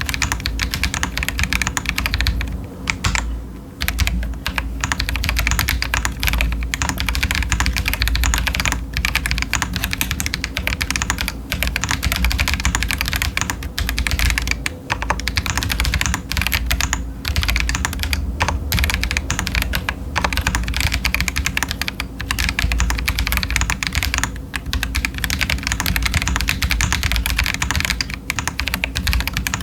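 Continuous typing on a stock Feker Alice 80 mechanical keyboard with TTC Chaotic Panda switches and Cherry-profile doubleshot ABS keycaps: a steady stream of keystrokes with a few short pauses.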